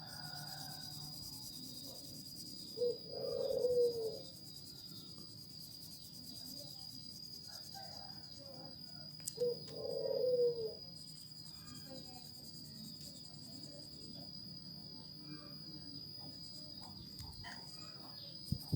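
A cricket trilling steadily on one high note throughout. Twice, about three seconds in and again about nine seconds in, a short call about a second long falls in pitch over it.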